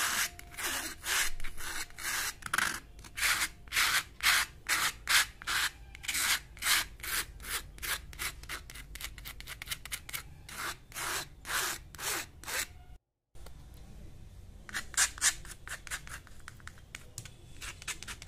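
Acrylic paint being worked onto a canvas with a painting tool in quick repeated rubbing strokes, about two or three a second. About thirteen seconds in the sound cuts out for a moment, and the strokes that follow are fainter.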